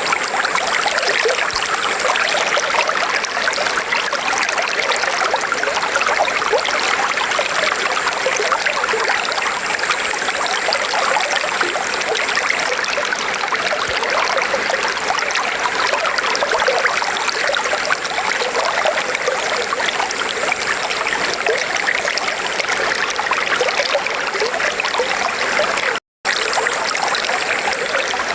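River water flowing steadily over rocks, an even rushing and trickling. Near the end it cuts to silence for a split second and then carries on.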